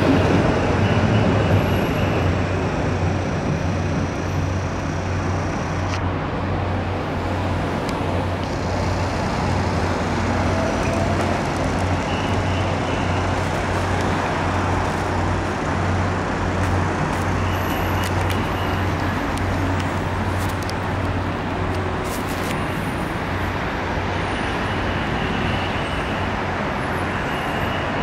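Steady city road traffic: motor vehicles running and passing with a continuous low engine hum, a little louder near the start as a van goes by close.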